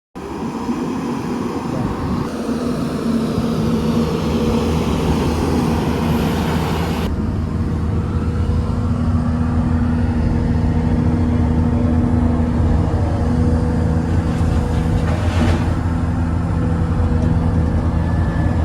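Diesel engine of heavy earthmoving machinery running steadily at a work site. A higher hiss over the engine noise stops about seven seconds in.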